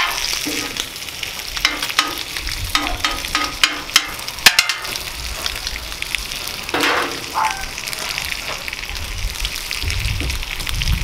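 Bacon and shredded hash browns sizzling on a hot Blackstone flat-top griddle: a steady frying hiss, with a run of sharp clicks and pops between about one and a half and five seconds in, the loudest about four and a half seconds in.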